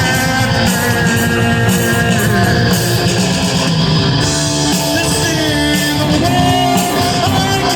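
Loud, continuous rock music with electric guitar played through distortion.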